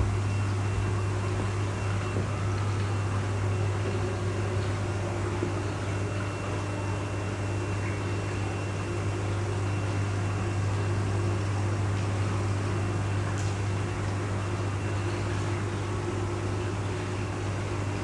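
Steady low mechanical hum of koi tank aeration and water-circulation equipment, with the hiss of water churning in the tanks.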